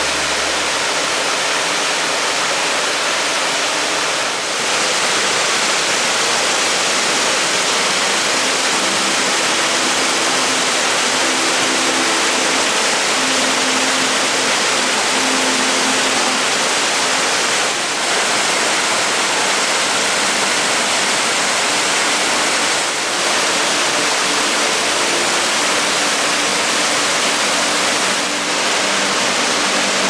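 Waterfall of the Mallnitzbach mountain stream pouring down a rocky gorge: a loud, steady rush of falling water that dips briefly four times.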